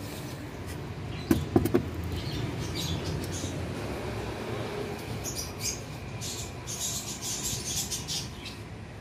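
A few sharp knocks and clicks about a second and a half in, as a glass feed jar is handled and set against wood, over a steady background of small cage birds chirping and chattering, busiest in the second half.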